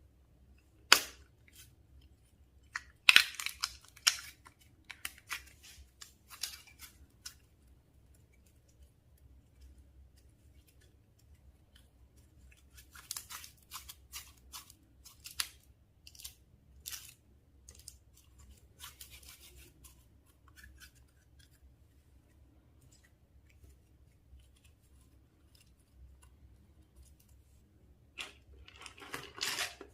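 Slime being handled and mixed: scattered sticky crackles and clicks in short clusters with quiet gaps, a sharp snap about a second in, and a denser run of crackling near the end.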